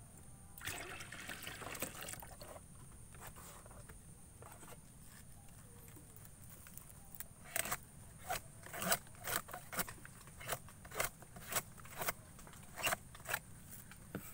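Hand handling of a bound coconut flower cluster, a rustle about a second in, then a run of sharp taps at about two a second through the second half.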